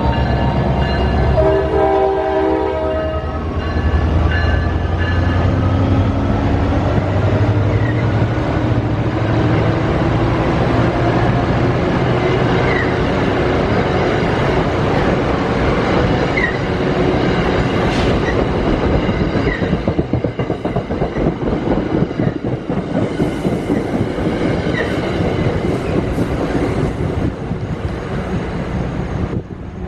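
NJ Transit diesel-hauled commuter train passing close by. The locomotive's engine runs for the first few seconds, then the coaches' steel wheels clatter over the rail joints, with a few brief wheel squeals. The sound falls away near the end as the train pulls off.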